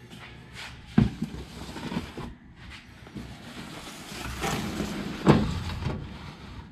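A cake pan being handled and slid onto a metal oven rack: a knock about a second in, scraping and rustling, then a sharp clank a little after five seconds as the pan goes onto the rack.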